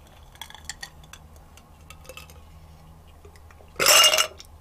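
A person drinking iced tea from a glass: small faint clicks of ice cubes and swallowing, then a loud breathy 'ahh' exhale lasting about half a second near the end.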